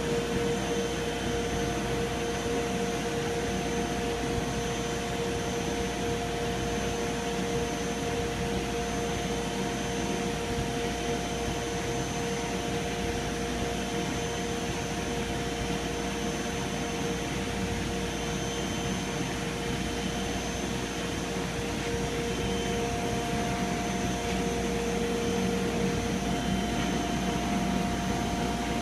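Chicago Pneumatic QRS-20 rotary screw air compressor running quietly under load, building air pressure: a steady hum with a few steady tones on top, one of which drops out near the end.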